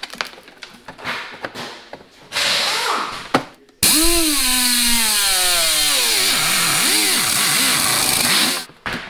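A power tool runs for about five seconds, starting abruptly about four seconds in and cutting off sharply. It makes a loud hiss with a whine that falls in pitch and wavers. Before it there are short scraping and rustling noises.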